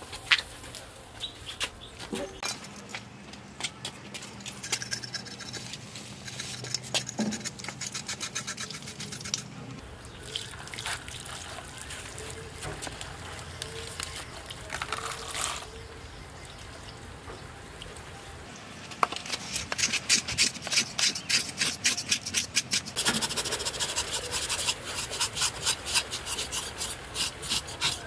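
Knife blades scraping the hair off a scalded piglet's skin in quick, repeated strokes, with water poured over the carcass around the middle. The scraping gets faster and louder for the last third.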